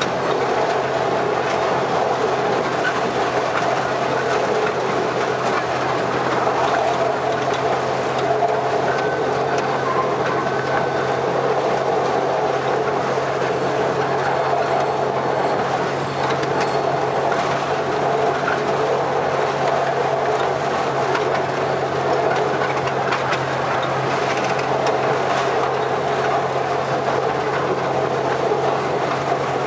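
Miniature railway locomotive and its carriage running at an even speed, a steady hum and rumble of the train and its wheels on the track.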